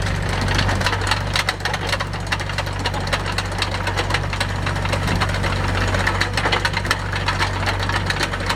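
Skid steer loader with a trencher attachment digging: a dense, irregular clatter of sharp cracks and clicks from the chain cutting soil, over the machine's steady engine hum.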